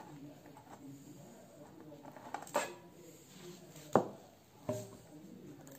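Three sharp clicks and knocks from handling a car touchscreen radio while taking its casing apart. The loudest comes about four seconds in, the others shortly before and after.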